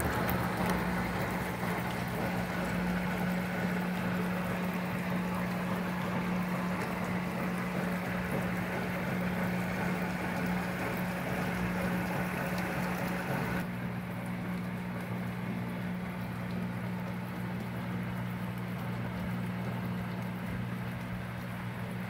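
Small portable countertop dishwasher running its wash cycle: a steady low hum under the hiss and splash of water spraying over the dishes and against the door window. The upper hiss of the spray drops noticeably about fourteen seconds in.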